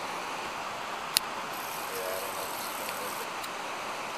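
Steady rushing noise, with a single sharp click about a second in.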